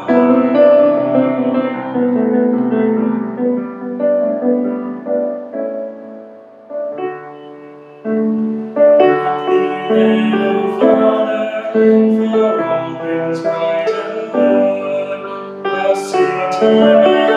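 Piano accompaniment to a sung offertory solo, playing sustained chords, with a male voice singing over it at times.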